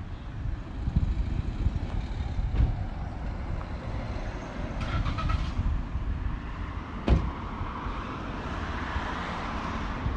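Wind buffeting the microphone, with traffic passing, a couple of sharp clicks, and a brief chirp about halfway through.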